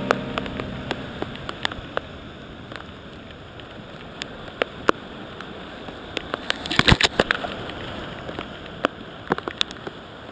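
Rushing whitewater of a flooded river rapid with sharp splashes and knocks as a kayak is paddled through, the splashes busiest about seven seconds in.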